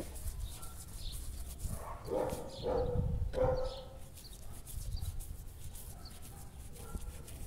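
A dog barking, a few short barks bunched together about two to three and a half seconds in, over a steady low rumble.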